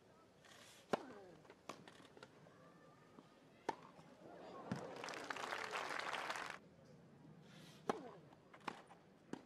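Tennis ball struck by rackets in a rally on a grass court: a few sharp pops one to two seconds apart. The point ends about halfway through, followed by about two seconds of crowd applause and cheering, then a few more sharp pops of the ball near the end.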